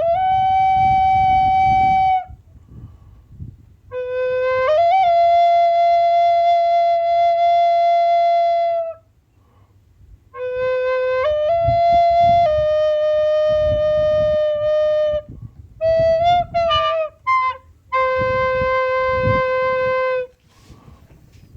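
A flute playing a slow melody of long held notes, sliding up between pitches, with a brief run of quick ornamental notes near the end and short pauses between phrases. A low rumble sits under the notes.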